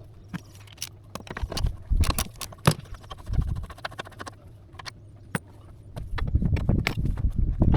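Metal hand tools clinking and knocking against the engine: socket-wrench work on the engine mount bolts, in scattered sharp clicks with a few louder knocks about two seconds in and a busier clatter with low rumble near the end.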